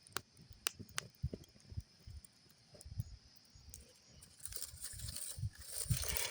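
Campfire crackling, with scattered sharp pops and soft low thumps; a hissing rush builds about four and a half seconds in.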